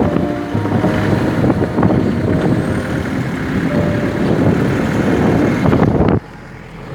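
Motor vehicle engine and road noise, running steadily and cutting off abruptly about six seconds in.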